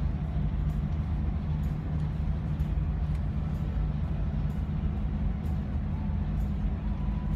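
Steady low drone of a bus engine and tyre noise heard from inside the cabin while cruising on a highway.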